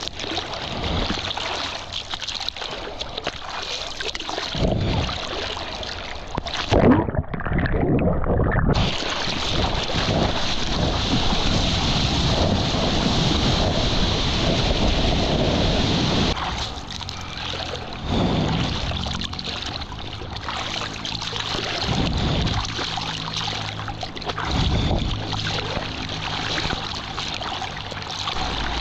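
Sea water rushing and splashing around a surfboard and a waterproof action camera at water level while paddling, with hands stroking through the water and whitewater churning close by. About seven seconds in, the sound goes muffled for a second or two. It is densest from about nine to sixteen seconds in, then comes in looser splashes.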